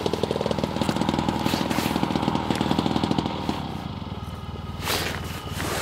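A small engine running steadily with a rapid pulse, fading out about three and a half seconds in, followed by a brief rustling swish near the end.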